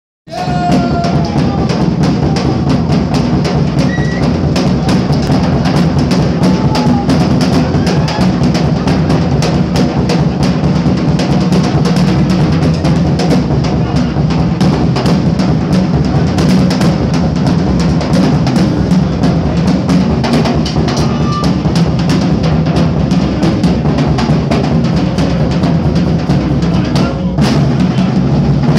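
Drum kit played live in a loud, fast, unbroken solo: bass drum, snare and cymbals, starting abruptly a moment in.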